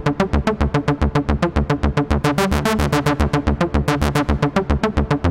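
Electronic synthesizer playing a fast, repeating sequence of short staccato notes, about eight a second, over a pulsing bass. The notes briefly run together a little past the middle.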